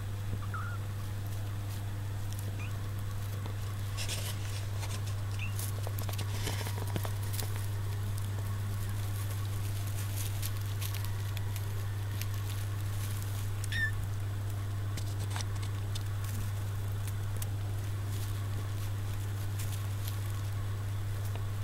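Young kittens stirring: soft scattered rustling and scratching with a few brief, faint high squeaks, over a steady low hum.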